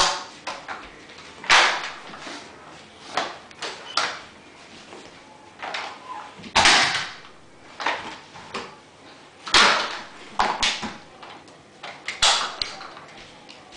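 Dyson DC24 upright vacuum being handled, its handle and wand worked: a string of irregular plastic knocks, clacks and rattles, several of them louder, with no motor running.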